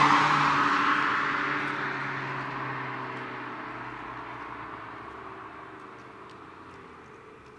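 Seat Leon FR 1.4 TSI turbocharged four-cylinder petrol engine on its stock exhaust with the front resonator removed, its engine and exhaust note fading steadily as the car drives off into the distance.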